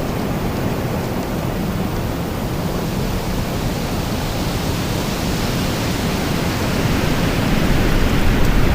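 Strong storm wind blowing steadily, a dense rushing noise with heavy low rumble, building into a louder gust near the end.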